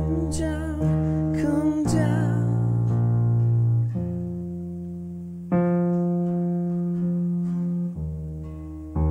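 Worship band closing a song: a last sung phrase with vibrato fades out in the first two seconds or so, then guitar and keyboard hold long sustained chords that change every couple of seconds.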